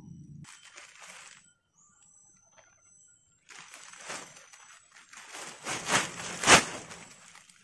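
Rustling and handling noises with two sharp knocks a little after halfway, the second one the loudest.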